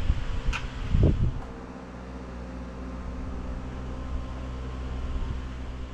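Steady mechanical hum made of several even tones, like a fan running. In the first second or so there are low bumps and a brief sharp click.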